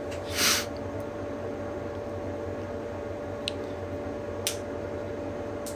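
Quiet room tone picked up by a phone microphone: a steady low hum under faint hiss, with a short breath-like hiss about half a second in and two faint clicks later on.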